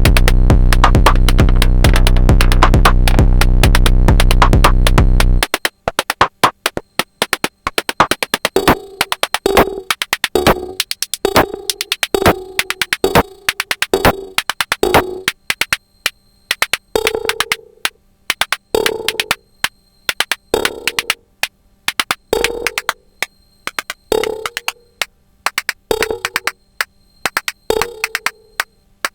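Sonic Potions LXR-02 digital drum machine playing a techno groove. About five seconds in, the kick and bass drop out for a breakdown, leaving fast hi-hat-like ticks and a pitched percussion hit about once a second.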